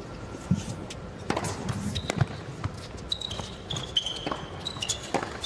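A tennis ball bounced on a hard court before a serve, then the serve and a rally: sharp racket strikes on the ball, with sneakers squeaking on the court in the middle of the rally.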